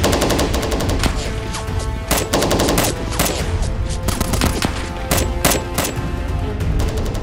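Firefight: rapid bursts of automatic gunfire with scattered single shots, the densest burst at the start, over background music.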